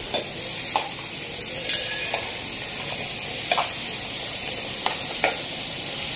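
Chopped onion sizzling in hot oil in a metal pot, stirred with a long metal spoon that scrapes and knocks against the pot about once a second. The onion is being fried until it turns reddish-brown.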